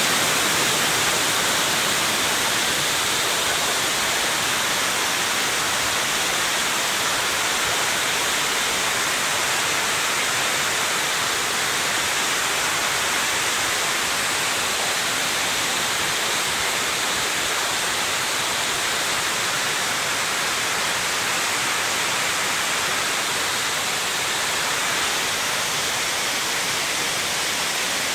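Water from an overflowing reservoir cascading over the crest of a stone dam and down its stepped masonry face: a steady, heavy rush of falling water.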